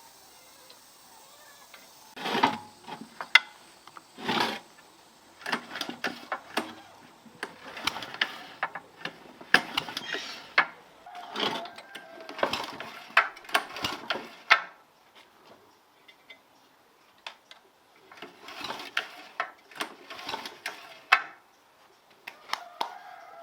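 Hand tools working on a small gasoline engine's metal parts: irregular clicks, clinks and short scrapes in clusters, with a pause of a few seconds past the middle.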